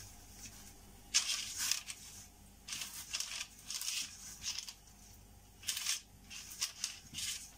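A pastry brush greasing the sides of a round, paper-lined cake tin with vegetable oil: short bursts of scratchy rustling and crinkling of the baking paper with each stroke, with pauses between them.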